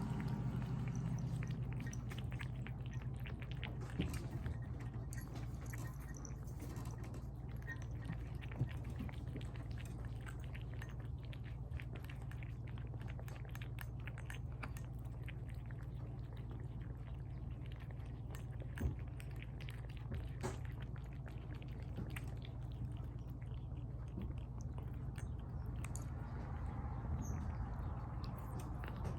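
Cats eating tuna from bowls: a steady run of small wet chewing clicks over a low steady hum.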